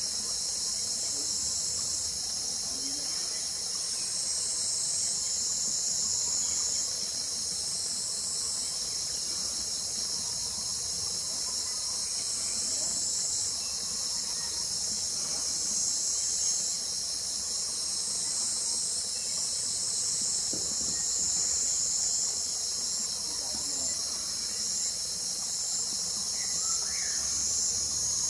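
Chorus of insects singing: a steady, high-pitched trilling made of several overlapping voices that swell and fade in turn.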